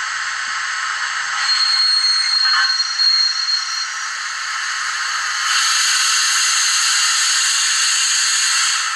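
Steam hiss played by the HM7000 sound decoder of an HO-scale Gr685 steam locomotive model through its small onboard speaker, thin with no low end. A faint high steady tone sits over it from about a second and a half in for two seconds, and the hiss grows louder about five and a half seconds in.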